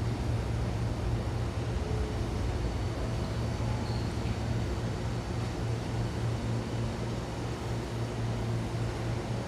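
Train at a station platform: a steady low hum with a rumble underneath.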